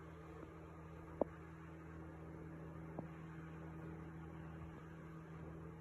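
Quiet room tone: a steady low electrical hum, with two faint clicks, about a second in and about three seconds in.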